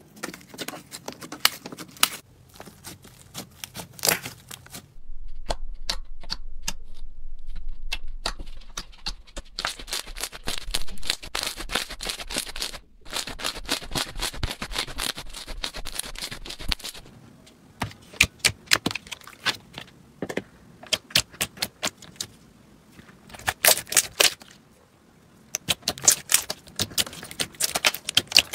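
Slime being pressed and squeezed by hand, making dense runs of small crackles and pops. The crackling is sparse at first, becomes a continuous crackle about five seconds in, and from about two-thirds of the way through comes in short bursts with brief pauses.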